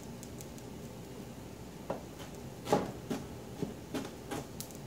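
Kitchen knife rough-chopping pineapple on a plastic cutting board: a series of about seven sharp, irregular chops starting about two seconds in.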